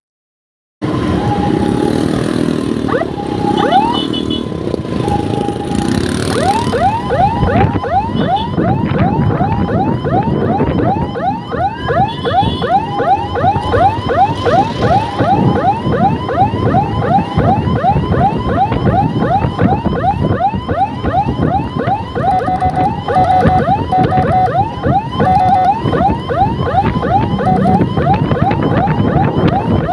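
Electronic escort siren on a scooter sounding a rapid yelp, quick rising sweeps several times a second, broken by short steady tone blasts, starting about a second in. The scooter's engine and road noise run underneath.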